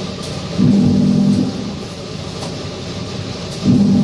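Corrugated-carton thin-blade slitter scorer machine running with a steady mechanical din. A louder hum lasting about a second recurs about every three seconds, twice here.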